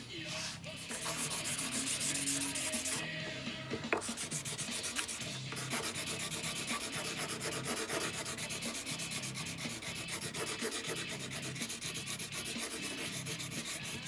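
Sandpaper being rubbed by hand on a folding knife's handle scales, quick, even back-and-forth strokes.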